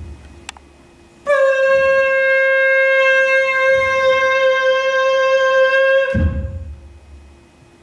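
A single horn-like note, very steady in pitch and rich in overtones, starts about a second in, is held for about five seconds and cuts off with a low thump.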